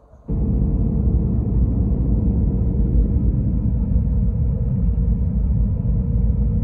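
Airbus A321 cabin noise on approach: engine and airflow noise heard from inside the cabin, steady and loud, with a constant hum running through it. It cuts in abruptly just after the start.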